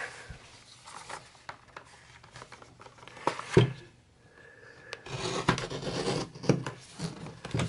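A knife blade cutting and scraping along the edge of a cardboard-backed plastic blister pack. There are a couple of sharp clicks about three and a half seconds in, then steady rubbing and scraping over the last couple of seconds.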